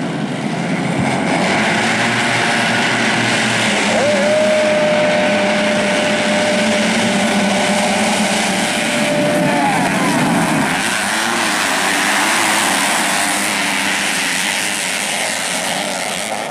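A pack of modified underbone-engined motocross race bikes revving hard and accelerating away from the start, many engines running at once, with one high steady note held for about five seconds in the middle.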